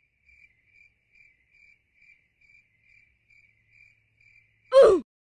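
Cricket-chirp sound effect: faint, evenly spaced short chirps, about two and a half a second. Near the end a short, loud sound falling in pitch cuts in over it.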